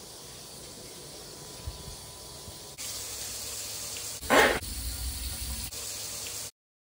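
Water running into a shower floor drain, a steady hiss that grows louder about three seconds in, with a brief louder burst a little after four seconds. It cuts off abruptly near the end.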